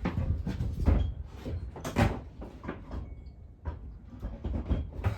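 Irregular knocks and clunks of hand tools and removed engine parts being handled and set down, the loudest about one and two seconds in.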